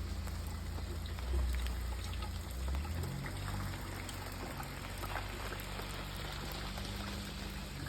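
Steady rain: an even hiss with scattered drop ticks over a low rumble that weakens about three seconds in.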